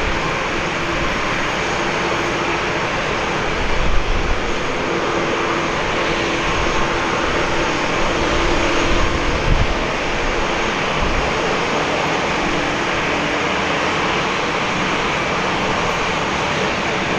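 Airbus A350-1000's Rolls-Royce Trent XWB turbofans running at taxi power: a steady jet rush with a faint steady hum. There are brief low rumbles about four and nine seconds in.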